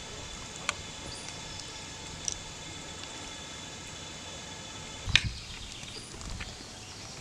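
Quiet outdoor background with a few sharp clicks or knocks, the loudest about five seconds in.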